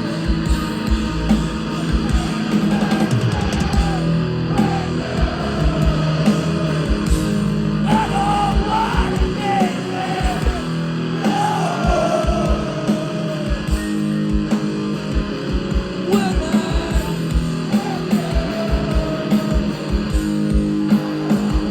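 Live rock band playing an instrumental passage: distorted electric guitars over a driving drum beat.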